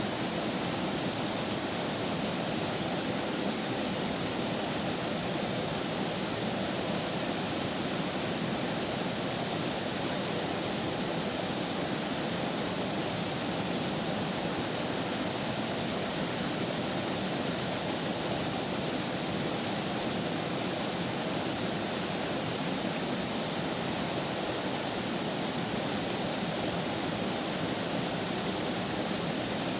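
River water flowing and rushing steadily, an even, unchanging wash of water noise.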